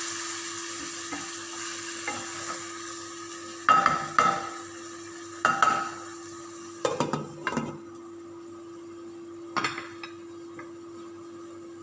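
Chicken pieces sizzling in a pan of thickening sauce, the hiss dying down over the first several seconds. A utensil clanks and scrapes against the pan several times as the chicken is stirred.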